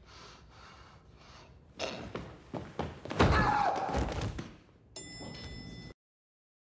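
Several heavy thuds of bodies throwing themselves against a door to break it down, with a voice crying out over the loudest thud. A short electronic sound with steady tones follows near the end and cuts off suddenly.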